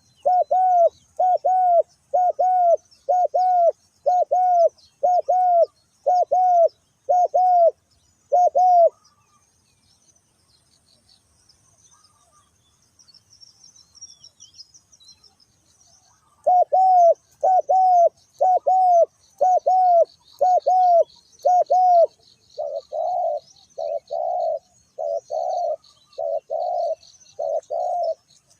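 Spotted dove cooing: a run of evenly spaced coos, about three every two seconds. They stop for several seconds partway through, then start again. Small birds chirp faintly in the background.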